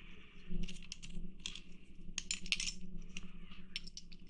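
Light, irregular clicks and small clinks from a diecast toy car and its small parts being handled on a work surface, over a faint steady hum.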